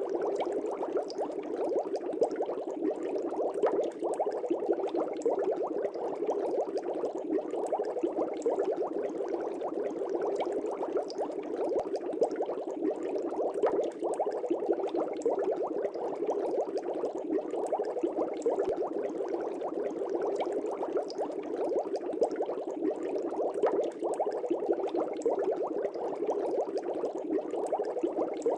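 Aquarium air bubbles rising and breaking at the water surface in a fish tank: a steady, dense bubbling with many small pops.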